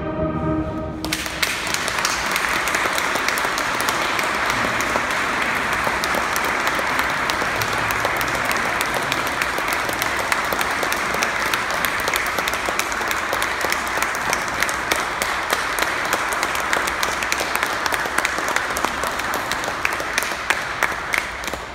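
A brass and wind band's final chord cuts off about a second in, then a crowd applauds steadily with many hands clapping.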